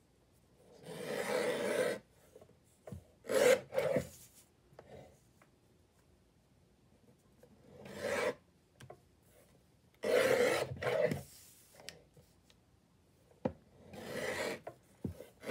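Paper trimmer's blade sliding along its rail and cutting through sheets of paper: about five strokes, each about a second long, with quiet gaps between them while the paper is repositioned.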